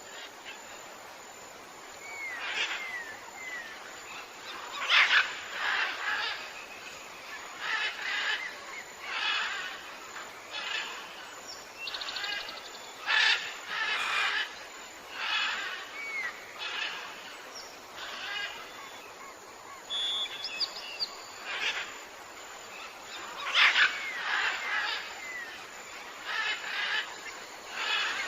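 Several jungle birds calling: short chirps and whistled notes, some sliding in pitch, coming roughly once a second over a faint steady hiss.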